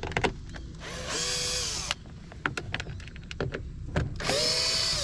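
Cordless drill running in two short bursts of about a second each, driving out the screws at the bottom of a car door panel, with clicks and handling knocks between.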